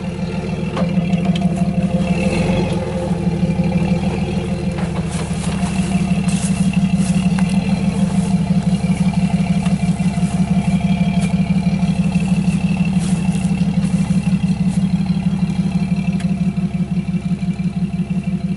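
Jeep Wrangler YJ engine running at low, steady revs as it crawls off-road over rough ground, with scattered light clicks and rattles. It grows slightly fainter near the end as the Jeep pulls away.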